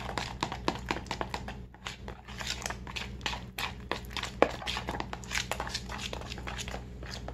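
A metal spoon stirring thick, lumpy funnel-cake batter in a plastic bowl: quick, irregular clicks and scrapes of the spoon against the bowl and through the batter.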